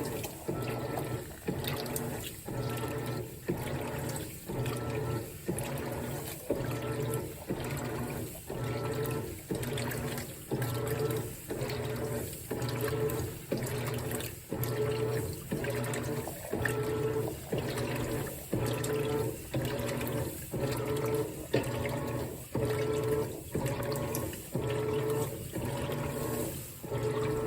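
Whirlpool WTW4815EW1 top-load washer agitating: its single-action agitator strokes back and forth in an even rhythm of about one stroke a second. Each stroke brings a swell of motor whine over water sloshing in the tub.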